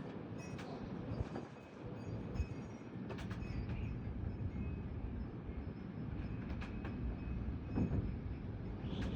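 Strong thunderstorm wind gusts: a steady, low rushing rumble, with a few sharp knocks in between.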